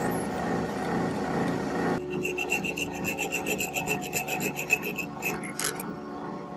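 Lathe running while a twist drill bores into a brass rod. About two seconds in, this gives way to a hand file rasping against the brass part in quick, even strokes, about four or five a second, with one sharp click near the end.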